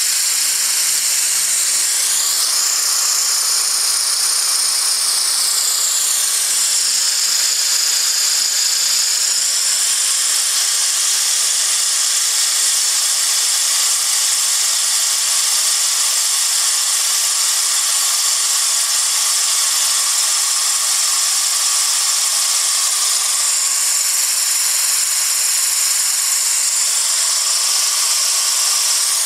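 Steady loud hiss of compressed air jetting from a nozzle and venturi into a small fan, with a high-pitched tone in the hiss sliding lower a few seconds in.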